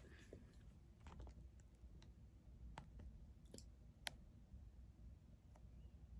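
Near silence broken by faint, scattered clicks and taps from handling a camera on its tripod, the sharpest about four seconds in.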